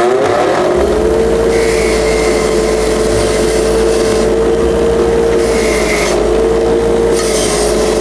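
Edison bench grinder's wire wheel coming up to speed and then running with a steady hum, with three stretches of harsh scratching as a bolt held in screw pliers is pressed against the wire brush to clean it.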